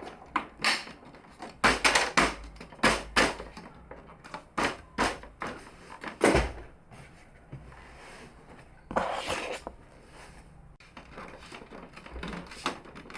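Plastic printer casing being handled and turned over: irregular knocks and clatters of plastic parts, with a longer scraping rustle about nine seconds in.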